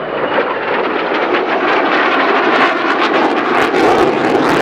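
Jet noise from a flying F-35A Lightning II: a loud, steady rushing sound from its single engine, with crackling in the last couple of seconds.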